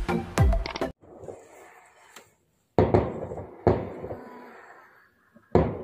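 Electronic intro music cuts off about a second in, then three fireworks bangs, each fading into a rumble over about a second, heard muffled from indoors through a window.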